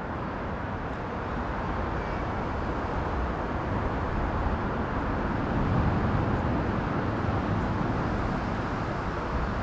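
Steady outdoor background rumble with no distinct events, growing a little louder about halfway through.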